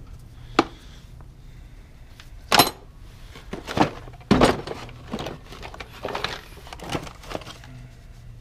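Metal hand tools and clear plastic storage bins knocking and clattering as a gloved hand rummages through them: a sharp click about half a second in, the loudest clatter a couple of seconds later, then a run of smaller knocks.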